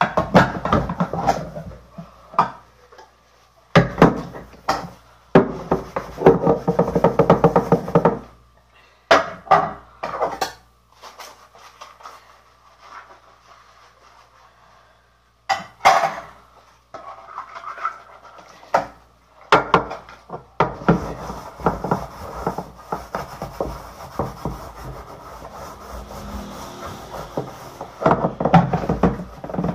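Hand dishwashing of aluminium pots: bursts of sponge scrubbing with sharp knocks and clatters of metal against the sink. Over the last third, tap water runs while the pots are rinsed.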